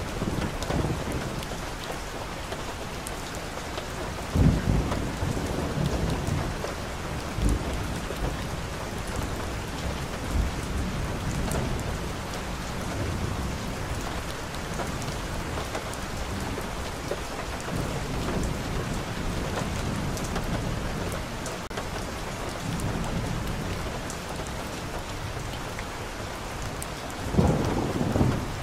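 Steady rain falling, with low rumbles swelling up now and then, the loudest about four seconds in and near the end.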